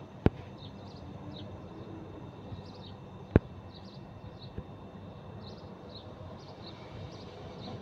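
Outdoor background noise with faint, short high chirps repeating throughout, typical of small birds, and two sharp clicks: one just after the start and a louder one a little past the middle.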